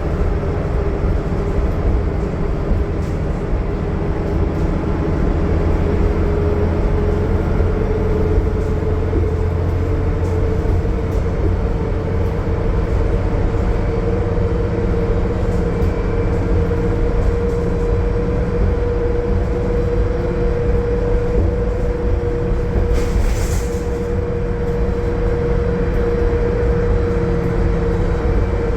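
2020 Gillig Low Floor 40-foot transit bus with a Cummins ISL9 diesel and Voith D864.6 transmission under way: a steady low drone of engine and road noise, with a whine that rises slightly and then holds steady. A short hiss comes about 23 seconds in.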